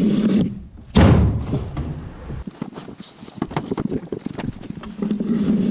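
A large thin sheet of old board is ripped loose and handled. There is a loud crack about a second in, then a quick run of snapping, crackling and knocking as the brittle sheet breaks and scrapes. A low steady hum comes back near the end.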